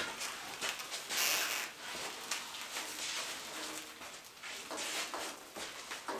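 Steel parts of a homemade hydraulic log splitter clanking and scraping as its log-loader arm is handled and swung into transport position, with irregular knocks and a louder scrape about a second in.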